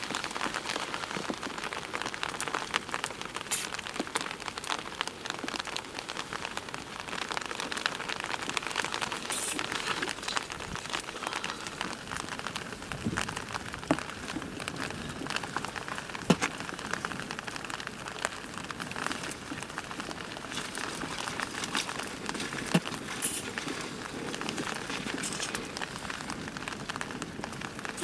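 Heavy rain falling, a steady dense patter of drops striking a surface with many small sharp ticks.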